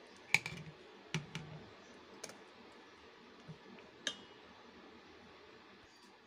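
A spoon knocking and scraping against stainless steel bowls as thick dosa batter is scooped from one bowl into another. There are a handful of sharp clinks, the loudest about a third of a second in. The last, about four seconds in, rings briefly.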